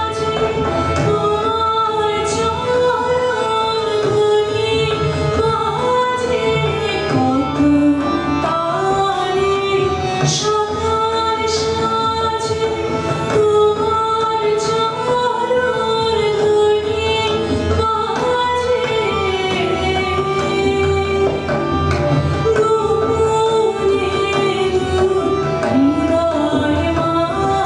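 A Bengali song performed live by a woman singing long, held melodic lines, accompanied by tabla and harmonium, with an acoustic guitar.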